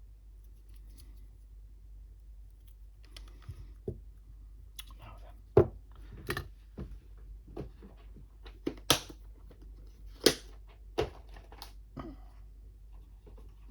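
Irregular sharp clicks and snaps of small parts being handled and worked with hand tools during a cordless screwdriver battery-pack repair, about a dozen of them starting a few seconds in, with the loudest ones in the middle.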